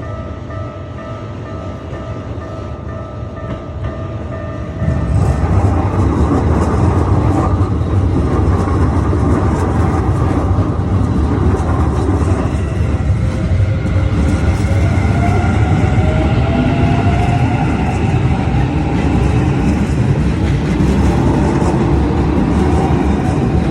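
Keikyu limited express electric train passing close by: about five seconds in, a loud deep rumble and rail clatter start suddenly and run on steadily, with a rising motor whine partway through. Before the train arrives, steady high tones sit over lighter running noise.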